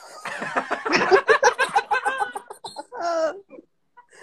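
Loud laughter: a quick run of ha-ha pulses for a couple of seconds, then one more short burst about three seconds in.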